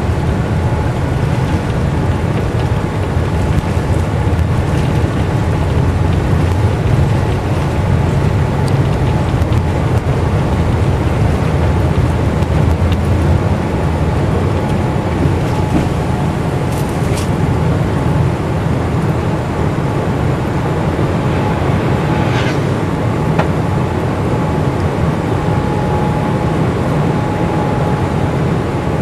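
Jet airliner taking off, heard from inside the cabin: the engines at takeoff power with a loud, steady low rumble through the takeoff and climb-out.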